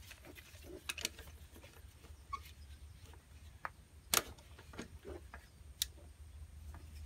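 Scattered faint clicks and taps of a spanner and gloved hands working on a Honda Dio scooter's carburetor mounting, with one sharper metallic click about four seconds in.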